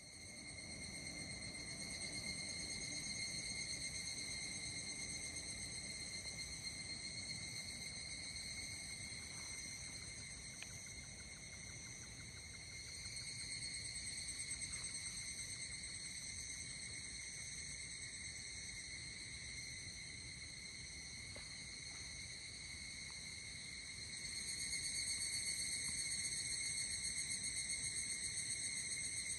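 Insects trilling continuously at one steady pitch, growing louder about four fifths of the way through.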